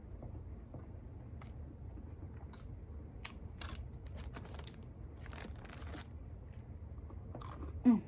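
Close-up chewing and crunching of food in the mouth, in short irregular crackles, with a brief hum of voice with a falling pitch near the end.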